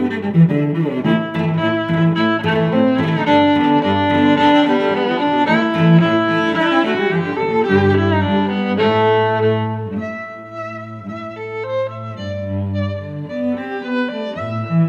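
Background music led by bowed strings, playing sustained melodic notes over a low line; the music thins out and gets quieter about ten seconds in.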